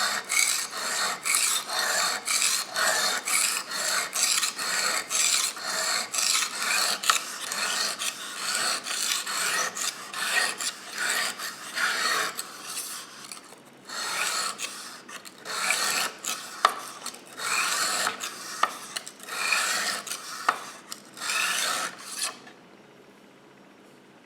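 Kitchen knife edge scraping back and forth across a coarse 220-grit aluminium oxide sharpening stone, about two strokes a second with a short pause partway, stopping near the end. The strokes are grinding the bevel to raise a burr along the edge.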